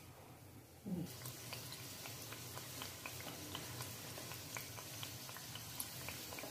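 Karanji pastries frying in hot refined oil: a steady sizzle with many small, quick crackles, starting about a second in after a short low sound.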